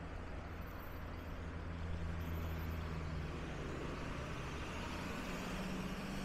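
Street traffic with a heavy vehicle's engine humming steadily for about the first three seconds; another engine hum, slightly higher, comes in near the end.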